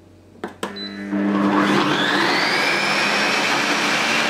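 Cecotec Mambo 10070 kitchen robot starting up: two short clicks, then about a second in its motor spins up to speed 10 with a rising whine that settles into a steady high-speed run as the blade mixes flour in the jug.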